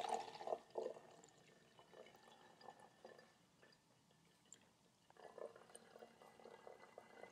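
Liquid poured from a glass jar into a cloth tea-towel filter over a bottle: faint splashing for about the first second, then quiet trickling and drips as it runs through the cloth, picking up again faintly near the end.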